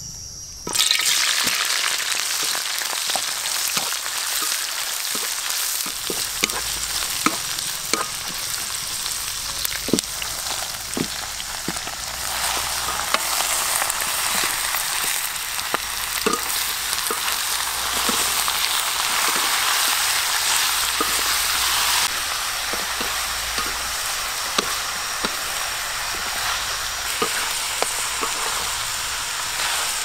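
Food dropped into hot oil in a wok, sizzling loudly, starting suddenly about a second in, with the clicks and scrapes of a spatula stirring against the wok now and then.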